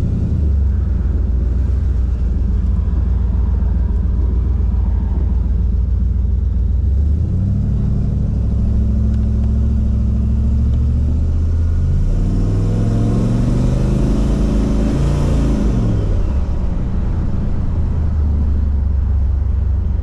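Turbocharged 408 LS V8 in a 1980 Ford Thunderbird heard from inside the cabin while driving. Its engine note steps up about seven seconds in, then rises and falls again with a swell of hiss between about twelve and sixteen seconds in.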